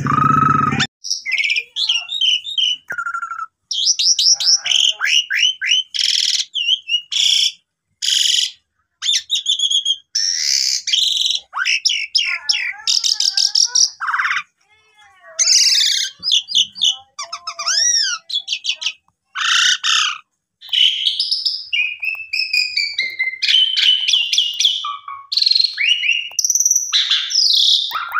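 Asian pied starling singing a loud, varied song of whistles, rising and falling glides and chattering notes in short phrases with brief pauses between. A harsh, noisy rasp fills the first second.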